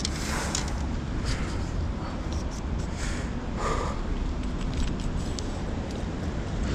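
Steady rumble of wind on the microphone over the rush of the flowing river, with a few short, louder noises in the first few seconds as the landing net is worked in the water.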